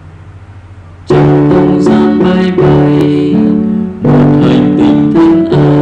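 Electronic keyboard music with held piano-tone notes and chords, starting abruptly about a second in after a quiet moment with a low hum.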